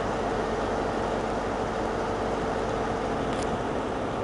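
Steady drone of diesel train engines running, with a steady hum through it and one brief high tick about three seconds in.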